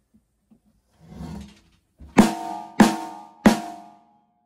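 Restored Sonor D506 snare drum struck three times, about two-thirds of a second apart, each hit ringing briefly. It is being test-played with its snare wires freshly fitted and centred. A quieter sound comes about a second before the first hit.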